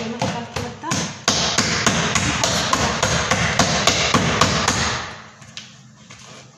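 A hand beating a soft yeast dough in a bowl, slapping it about three times a second, to work it well. The slapping stops about five seconds in.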